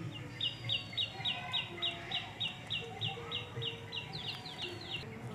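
A bird calling a long series of short, sharp, high notes, each slurring downward, evenly spaced at about four a second, then a quicker run of a few notes near the end.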